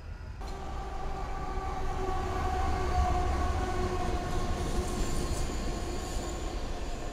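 Freight train passing close by with a low rumble, and a locomotive horn sounding one long, steady chord that starts about half a second in.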